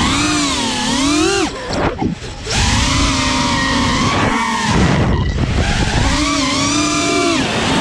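Brushless motors of a 5-inch FPV quadcopter on 6S, T-Motor Pacer 1950KV, whining in flight, the pitch rising and falling with the throttle. The throttle drops off sharply twice, about a second and a half in and again just after four seconds, each time spooling back up, with wind rumbling on the microphone.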